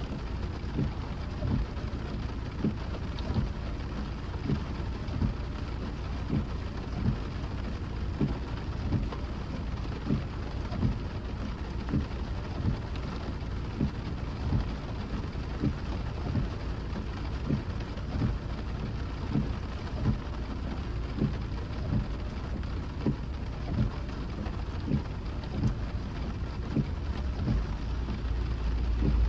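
Rain falling on a moving car, over a steady hiss of road noise, with low thuds that repeat a little more than once a second.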